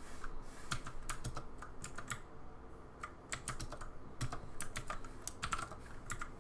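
Typing on a computer keyboard: irregular clusters of key clicks, with a short pause about halfway through.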